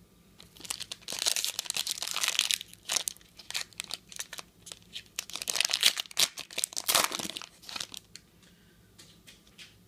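Foil wrapper of a trading-card pack crinkling and tearing as it is ripped open and peeled off the cards, in two loud spells of crackling. A few faint ticks follow near the end.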